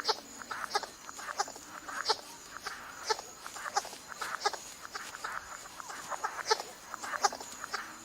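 Male bird in courtship display making irregular short, sharp clicks, several a second, with soft scuffling sounds between them.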